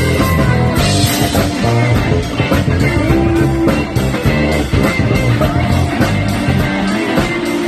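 Live rock band playing an instrumental section with no singing, the electric bass guitar's plucked notes prominent over drums and keyboards, in the middle of a bass solo.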